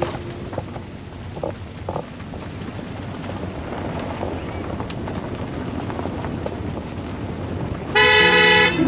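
Vehicle rolling along a gravel road, tyres crunching steadily on the loose stones. About eight seconds in a loud, short horn blast sounds as a dog crosses the road ahead.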